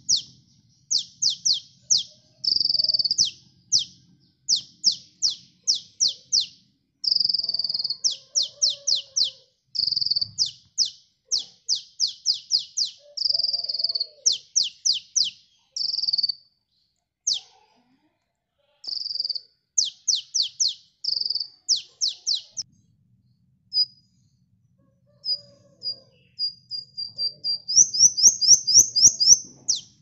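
Male sunbird singing a fast chattering song: quick runs of sharp notes that sweep down in pitch, broken by short buzzy trills, with a few short pauses and a louder, higher-pitched run near the end.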